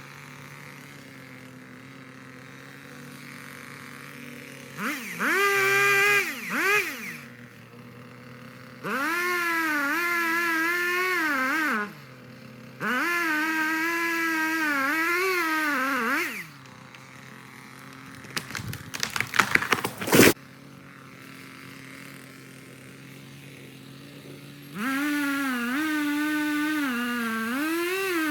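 Echo CS-3510 two-stroke chainsaw idling, revved up to full throttle four times for a few seconds each, the pitch wavering as the chain cuts through wood. A quick run of sharp cracks and snaps comes between the last two revs.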